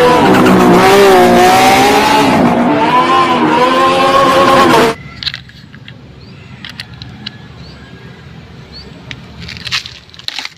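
Race car engine sound effect, revving up and down in pitch for about five seconds before cutting off abruptly. Light clicks and taps follow.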